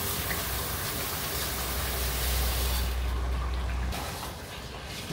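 Uncooked rice pouring from a plastic container into a pot of stew, a steady hiss of falling grains over a low rumble that stops about three seconds in. Then a wooden spoon stirring the rice in the pot, quieter.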